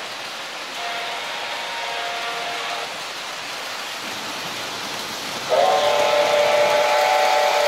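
Model trains running on a layout, with a steady hiss under a toy train whistle. A softer whistle chord sounds about a second in for some two seconds, then a loud steady whistle chord starts suddenly near the end.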